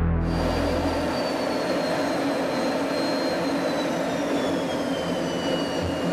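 Jet aircraft engine running steadily, a rushing drone with a high whine that slowly drops in pitch.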